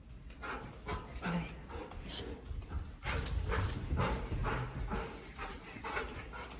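Bernese mountain dog giving a quick string of short barks and whines, coming faster from about halfway through.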